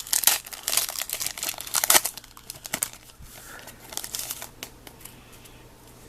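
Foil or plastic trading card pack wrapper crinkling as it is torn open and handled: dense crackling for about two seconds, then scattered crackles that die away after about four seconds.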